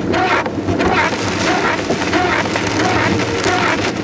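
Heavy rain pelting a moving car's roof and windshield, with the wipers swishing across the glass in a regular rhythm roughly twice a second and the engine humming low underneath.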